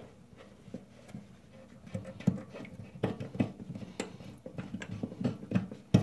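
Irregular small clicks and taps of pliers and fingers on a toilet supply line's coupling nut as it is unscrewed from the underside of the tank, coming thicker and louder about two seconds in.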